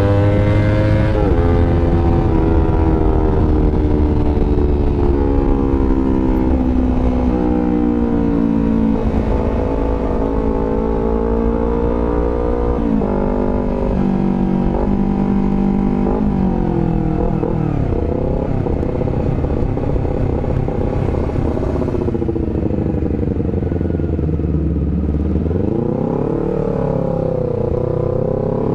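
Honda CBR250RR engine running through an aftermarket R9 GP Series exhaust, its note rising and falling with the throttle. The pitch drops suddenly several times, with a quick dip and rise near the end.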